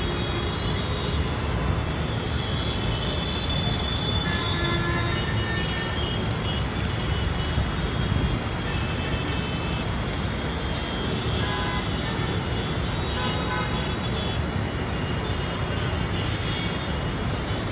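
Steady rumble of street traffic and running engines, with faint short horn-like tones now and then.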